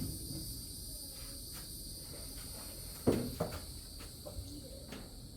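Steady chirring of crickets, with two sharp knocks a little after three seconds in and a few lighter clicks from work on the car's interior.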